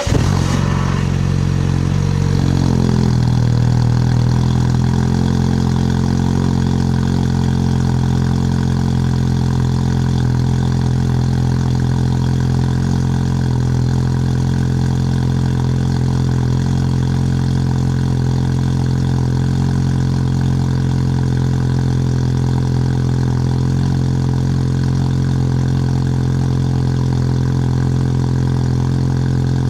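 Car engine catching right at the start, its revs flaring and then dropping over a couple of seconds to a steady idle that holds unchanged.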